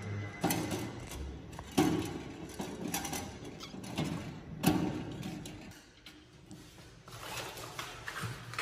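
Knocks and clicks of a thin metal mailbox door being handled while a lock is fitted into it by hand: several sharp knocks about a second apart, the loudest nearly five seconds in, then quieter handling.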